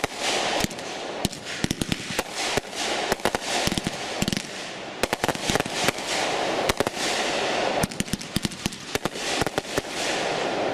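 World Class Fireworks "True Art" 500 gram cake firing: a rapid, irregular run of sharp bangs from shots breaking overhead, over a continuous crackling hiss.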